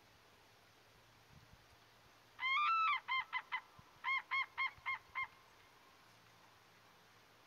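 Common cranes trumpeting: one longer call, then two quick runs of short clipped calls, about four a second, with a brief break between the runs.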